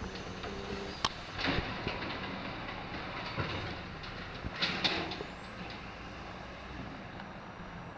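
Automated side-loader garbage truck's engine running while its hydraulic arm grabs, lifts and tips a wheeled trash cart, with knocks and a rattling clatter of the plastic cart, loudest a little before five seconds in, followed by a faint rising whine.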